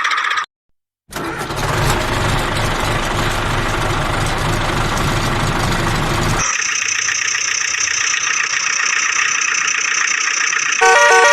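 A motor-like running sound with a low rumble, which changes about six seconds in to a steady high whine; a short run of stepped electronic beeps comes near the end.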